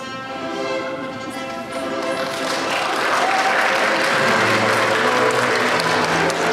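Wedding guests applauding the newly married couple, the clapping swelling and getting louder from about two seconds in, over music with sustained tones that carries on underneath.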